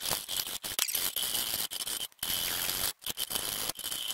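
Hand file rasping across the edge of a steel skid plate clamped in a bench vise, in repeated strokes with short breaks between them, smoothing out a notch that was drilled and broken out.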